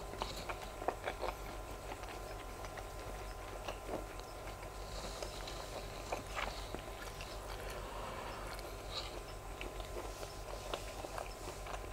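A person chewing grilled sausage close to the microphone with the mouth closed, in scattered small clicks and smacks over a steady low hum.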